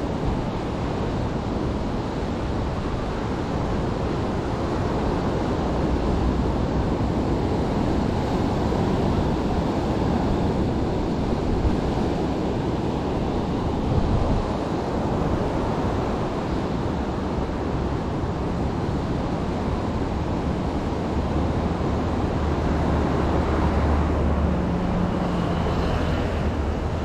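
Wind buffeting the microphone over a steady wash of sea surf. A low steady hum joins in over the last few seconds.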